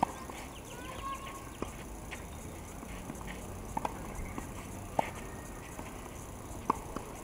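Tennis balls being struck with rackets on a clay court: single sharp pops about every one to two seconds, as in a rally, over a steady outdoor background.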